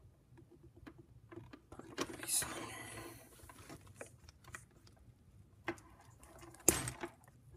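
LEGO pneumatic parts being handled: light plastic clicks as tubing is pushed onto a pneumatic cylinder. There is a short rustle about two seconds in and one sharp click near the end.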